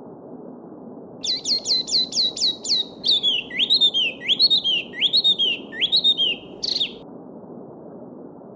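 A small songbird sings one phrase of about seven quick, repeated falling notes, then five slurred rising-and-falling notes and a short final note, over the steady rush of a babbling stream.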